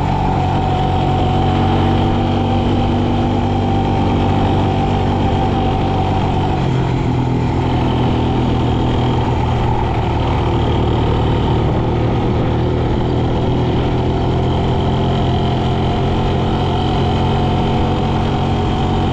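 Quad bike (ATV) engine running under way at a steady speed. Its note steps up a little about six seconds in.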